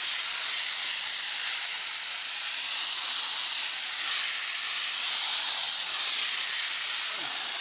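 Paint spray gun spraying steadily: a loud, even hiss whose tone drifts slowly up and down. It is giving a good, full spray now that the gun has been cleaned out of clogged paint with water.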